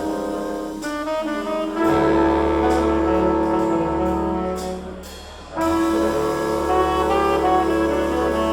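Jazz tentet playing a slow ballad, saxophones and brass voiced together over string bass. The band thins out and quietens about five seconds in, then the full ensemble comes back in at once.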